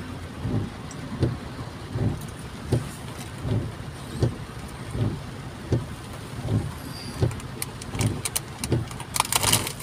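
Car heard from inside the cabin, creeping in rain-wet traffic: a steady low rumble with a soft, regular thump about every three-quarters of a second. A quick run of sharp clicks comes near the end.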